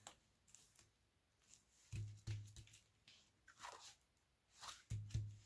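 Faint handling of a cardstock scrapbook page: scattered soft paper rustles and crinkles as it is lifted and tilted, with a low bump about two seconds in and another near the end.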